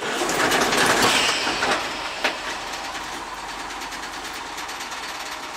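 1981 GMC C7000 dump truck engine running just after being started with the truck in gear. It is loudest for the first two seconds, then settles into a steady run, with a single knock about two seconds in.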